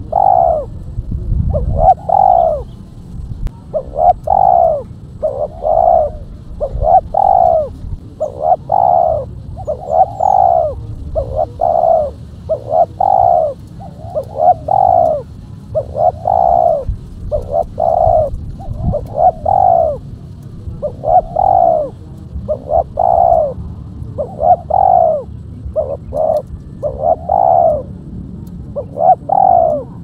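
Spotted dove cooing: a steady series of short coos, about one a second.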